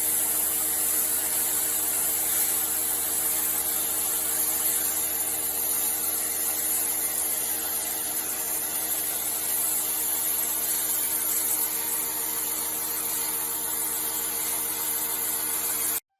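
Pressure washer running steadily, a machine hum under a loud high hiss of the water jet, cutting off suddenly near the end.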